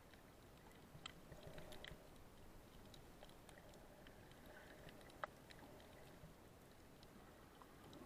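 Faint underwater crackling: scattered short clicks and snaps, with one sharper click about five seconds in.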